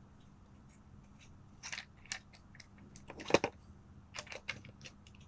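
Scattered plastic clicks and handling rattles of a small video-kit accessory being fitted onto a tripod mount, the sharpest click about three seconds in and a run of lighter clicks after it.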